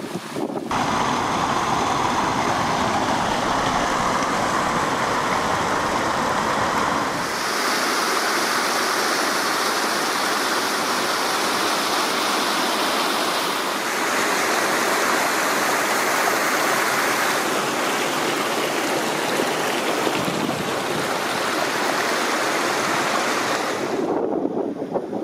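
Small waterfall cascading over mossy rocks: a steady rush of water whose tone shifts abruptly several times. Near the end it gives way to a lower, duller rush.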